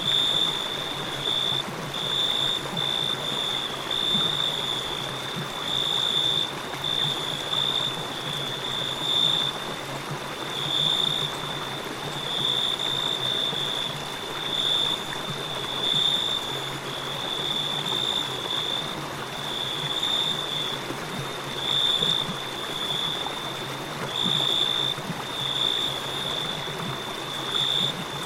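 Crickets chirping in a high, pulsing trill that swells every second or two, over the steady rush of a flowing river.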